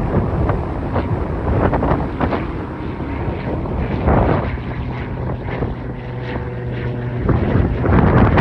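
Cessna 182T Skylane's six-cylinder Lycoming IO-540 engine and propeller droning during the climb after takeoff, with wind buffeting the microphone in repeated gusts. The steady, pitched drone of the engine comes through most clearly from about four to seven seconds in.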